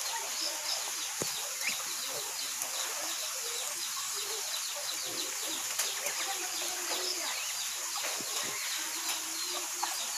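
Small birds chirping again and again over a steady high-pitched hiss.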